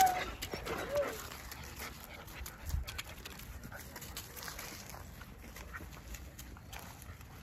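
German Shepherd puppies whimpering twice in the first second or so, short high whines. Then quieter scuffling and rustling as they run and play on grass and gravel.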